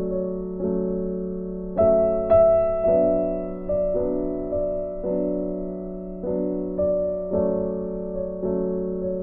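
Background music: slow, gentle piano, with notes and chords struck about once a second and left to fade.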